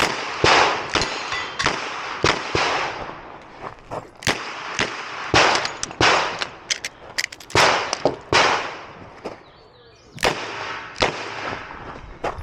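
Ruger GP100 Match Champion revolver firing .38 Special rounds in a rapid string of sharp shots about half a second apart, each ringing out briefly, with short pauses between groups of shots.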